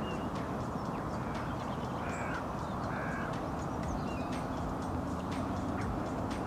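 Crows cawing a few times, around two to three seconds in, over a steady low outdoor rumble.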